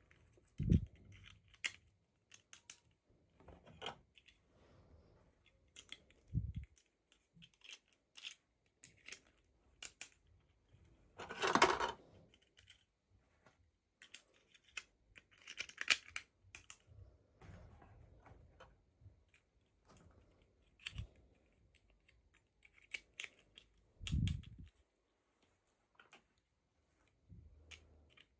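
Hands unpacking toy doll packaging: scattered small clicks and taps of plastic and cardboard, a rustling burst of crinkled packaging near the middle and another shorter one a few seconds later, and a few low thuds as things are set down.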